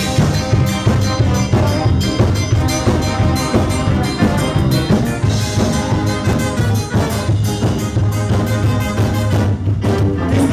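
Live band playing music at full volume, with a steady drum beat and a heavy bass line.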